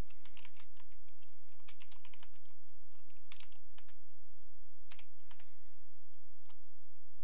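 Computer keyboard keys clicking as a terminal command is typed, in short irregular bursts of keystrokes with pauses between. A steady low hum runs underneath.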